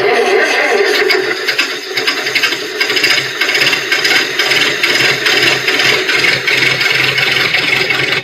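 Old car engine sound effect: a clunky old car engine turning over with a steady rasping, rattling clatter, the kind of sound used for a car that won't start on a dead battery. It cuts off sharply near the end.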